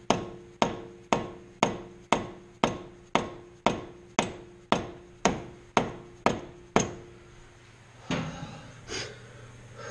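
Hammer blows on the end of a 2000 Nissan Maxima's CV axle, driving its inner joint into the gearbox: a steady run of sharp ringing strikes, about two a second, that stops about seven seconds in. The axle is not yet fully seated.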